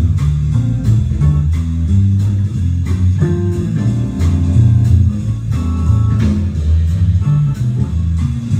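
Instrumental guitar music with a prominent bass guitar line playing changing low notes, blues-like, over a steady beat.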